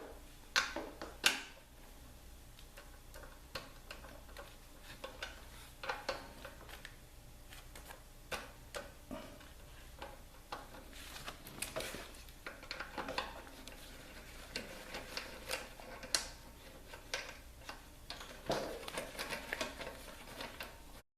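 Light metal clinks and clicks of hand tools, scattered and irregular with a few short clusters, as a socket wrench works the brake caliper bolts on a motorcycle's front fork.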